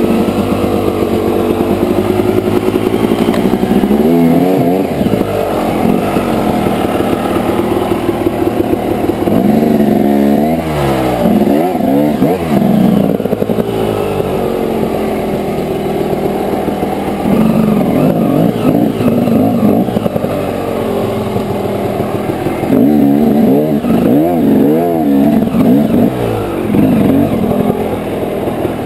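Dirt bike engine revving up and falling back again and again as the throttle is worked in bursts, with a few louder stretches of hard revving.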